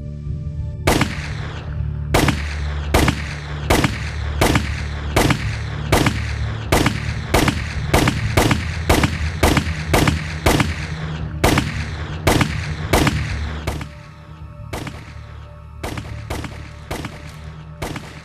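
A long string of gunshots, roughly two a second, each with a ringing tail, over a steady low music drone. About fourteen seconds in the drone drops out and the shots go on a little more sparsely.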